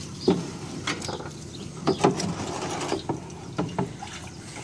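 Irregular knocks and short squeaky scrapes, about seven in four seconds, from a long-handled dip net's metal frame being worked against a plastic fish-stocking tank.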